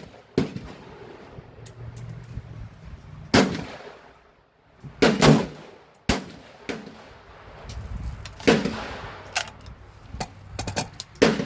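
Firearms firing: about five loud gunshots at irregular intervals, each with a short fading echo, mixed with several sharper, fainter cracks from other shooters.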